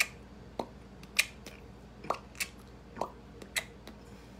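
A series of short, sharp clicks at an uneven pace, about two a second, some brighter and louder than others.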